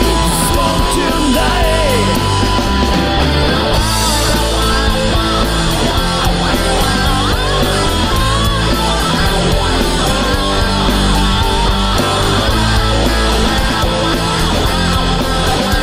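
Loud rock music with guitars and drums keeping a steady beat.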